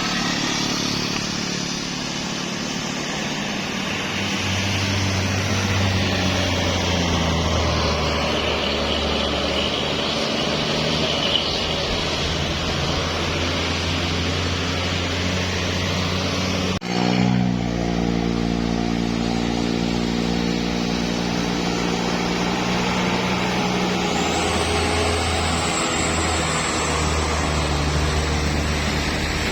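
Road traffic climbing a hill: vehicle engines working steadily, with a low, deep engine note throughout. About seventeen seconds in, the sound drops out for a moment and comes back.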